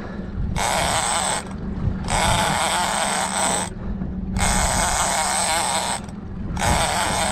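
Big-game fishing reel under load from a hooked bluefin tuna, running in four rasping bursts each about a second and a half long with short gaps between them.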